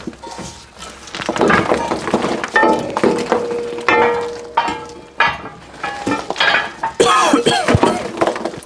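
Metal parts and tools clinking, knocking and scraping in a string of sharp hits, some ringing briefly, as heavy components are worked loose and handled beneath a traction engine.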